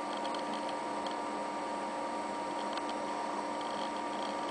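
Steady hum of a Macintosh SE case converted to a mini-ITX PC, its fans and power supply running, with faint clusters of quick ticks from its 20 GB hard drive reading as Windows XP loads.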